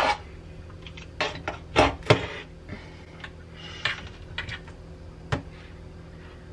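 A caulk scraper tool scraping and knocking along the caulk line at the edge of a stainless steel kitchen sink while old caulk is being removed: irregular sharp clicks and short scrapes, over a steady low hum.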